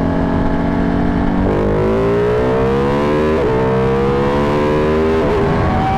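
Ducati 1199 Panigale's Superquadro V-twin accelerating hard, its pitch climbing through the gears with two quick upshifts about halfway through and near the end. The rider is short shifting to keep the front wheel from lifting.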